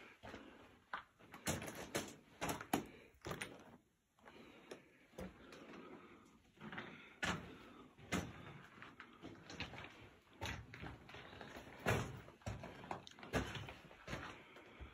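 Footsteps crunching and scuffing on the loose rock floor of a mine tunnel: irregular steps and scrapes, with a brief pause about four seconds in.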